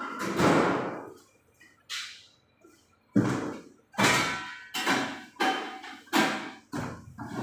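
Kitchen clatter: a series of sharp metallic clangs and knocks, each ringing briefly, coming about twice a second in the second half.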